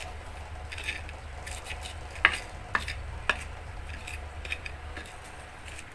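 Stone pestle (ulekan) crushing whole chilies, shallots and garlic in a cobek mortar: scattered sharp knocks and cracks of stone on stone, a few at a time, the loudest three near the middle. This is the start of grinding the sambal, with the ingredients still whole.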